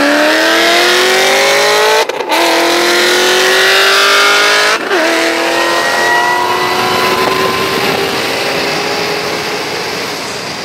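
Modified Ford Mustang V8s at wide-open throttle. The engine note climbs steadily in pitch and drops at two upshifts, about two seconds and about five seconds in, then fades over the last few seconds as the cars pull away.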